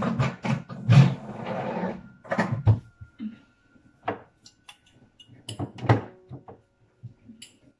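A run of knocks, bumps and clatters from kitchen cabinets and things on the counter being handled, with a short scraping, rustling stretch about a second in.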